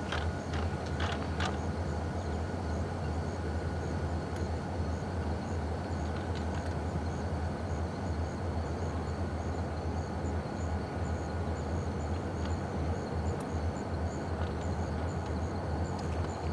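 Steady low rumble of diesel freight locomotives idling at a distance, with faint high chirps repeating evenly above it.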